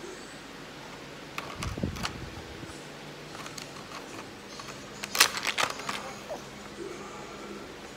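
Light plastic clicks and taps from a toy makeup palette being poked and dabbed with a small applicator stick. There is a soft thump about a second and a half in, and a quick, louder run of clicks about five seconds in.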